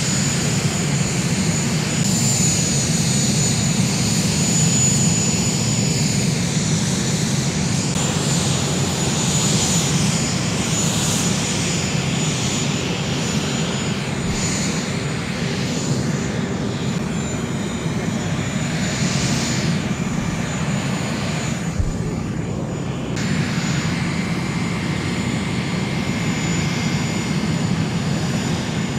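Jet aircraft engines running steadily on an airport apron: a continuous low rumble with a thin, steady high-pitched whine over it.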